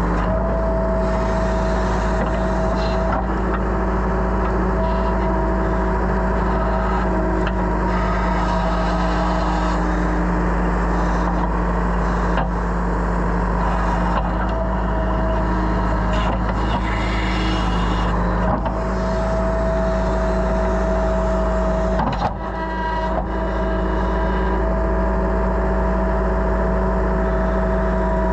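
Excavator's diesel engine running steadily while it digs dirt, with a whine that comes and goes as the arm and bucket work, and a few clunks.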